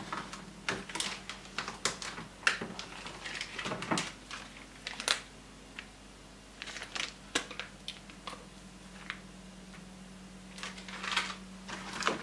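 Crinkling of plastic film and light clicking taps of hands at a kitchen counter as sliced cold cuts are laid onto rolled potato dough. It comes in irregular clusters, busiest in the first few seconds and again near the end, over a faint steady hum.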